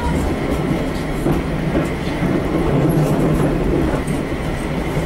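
280 hp Walker railcar's diesel engine running steadily as the railmotor rolls along the track, with the rumble of its wheels on the rails, heard from on board.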